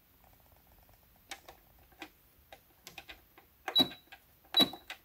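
Plastic pattern-selection buttons on a Brother EX660 computerized sewing machine being pressed over and over, a run of soft clicks. Near the end come two short high beeps as the machine confirms the button presses.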